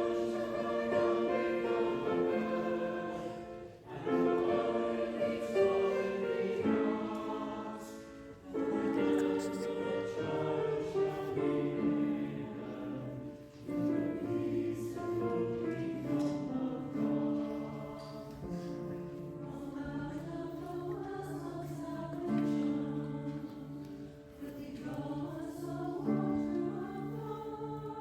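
Music: a choir singing, with held notes that move in steps and a few brief pauses between phrases.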